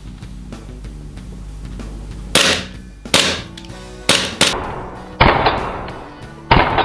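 Hudson H9 gas blowback airsoft pistol firing six shots at irregular intervals, starting a couple of seconds in, two of them in quick succession. Each is a sharp crack of the slide cycling followed by a short hiss of venting gas, and a lot of gas escapes with each shot, which the shooter takes as the reason for the pistol's poor gas efficiency.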